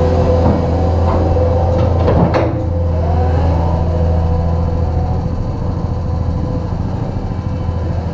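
Cat 289D compact track loader's diesel engine running steadily as the machine pulls out and moves away, growing slightly fainter in the second half. A brief clatter comes about two seconds in.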